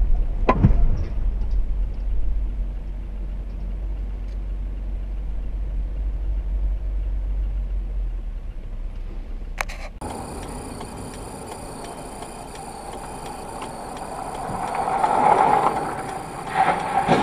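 Vehicle driving noise: a steady low rumble that changes abruptly, about ten seconds in, to a hissier sound that swells near the end.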